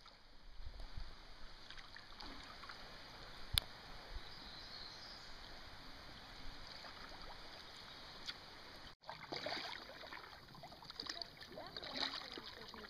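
Faint kayak paddle strokes on calm water: blades dipping, with light splashes and drips, and one sharp click about three and a half seconds in. The splashing is a little louder over the last few seconds.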